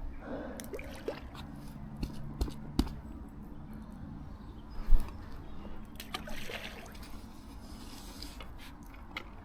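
Water trickling and splashing at the river's edge, with scattered knocks and a sharp thump about five seconds in.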